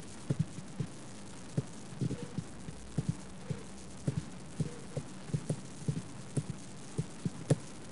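Irregular soft taps and knocks, a few a second, from writing the word "diameter" by hand on a digital writing surface, over a steady low hum.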